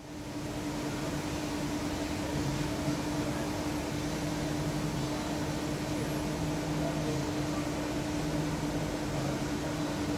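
A steady hum holding one constant low tone over even hiss.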